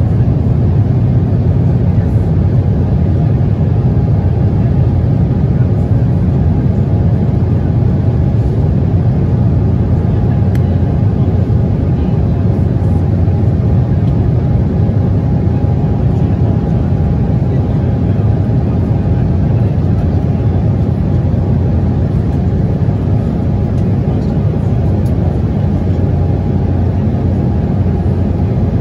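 Steady in-flight cabin noise of an Embraer E190 airliner: its General Electric CF34 turbofan engines running and the airflow over the fuselage, heard from inside the cabin as a deep, even rush with a faint steady tone.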